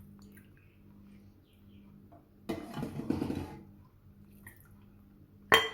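Ladle serving thick beef trotter curry into a dish: a wet slop and pour of gravy lasting about a second, starting about two and a half seconds in, then one sharp metal clink near the end.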